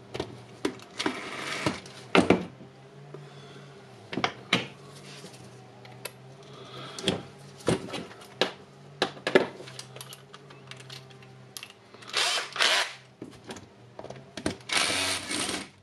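Clicks and knocks of metal parts being handled during the teardown of an impact wrench. Near the end come two short bursts of a Bosch drill.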